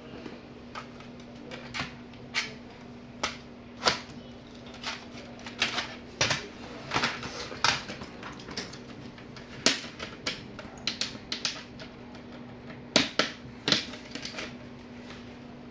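Irregular sharp clicks, taps and snaps of a laptop's plastic casing being handled and pried at with a screwdriver and a plastic opening pick, over a steady low hum.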